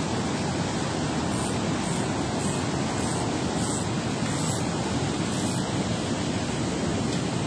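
Steady rush of water pouring through a dam spillway, an even noise with no break.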